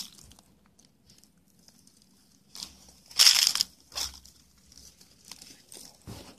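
Footsteps crunching on dry leaves and dirt: a few irregular crunches beginning about two and a half seconds in, the loudest a little after three seconds.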